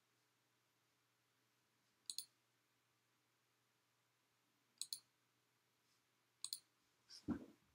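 Three computer mouse clicks, each a quick press-and-release pair, a couple of seconds apart over near silence. Near the end comes a louder, lower thump.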